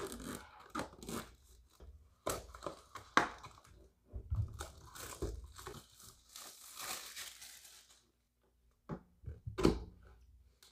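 A product box being unboxed by hand: plastic wrap and cardboard packaging tearing and crinkling, with a run of clicks and rustles. A few sharp knocks and taps come near the end.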